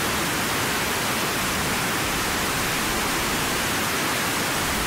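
Steady rush of churning water and surf, one even loud hiss with no breaks.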